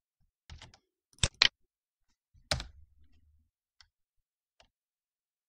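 A handful of sharp, irregular computer keyboard key clicks. The loudest pair comes about a second and a quarter in, and another strong keystroke with a short thud near two and a half seconds, as a terminal command is entered and submitted.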